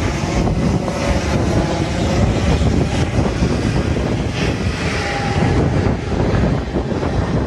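Airbus A320neo airliner's jet engines running while the plane moves on the ground, with wind buffeting the microphone.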